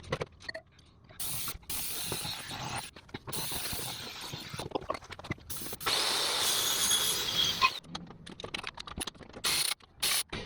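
Socket ratchet clicking in quick bursts as the oil pan bolts are loosened, with short pauses between runs.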